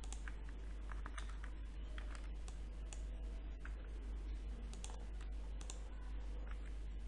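Computer keyboard keys and mouse buttons clicking, irregular separate clicks over a steady low electrical hum.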